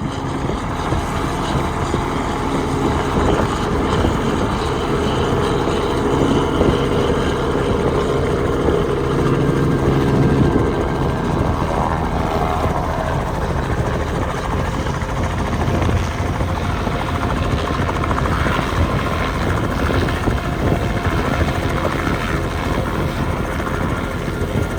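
A small helicopter's engine and rotor running with a loud, steady drone.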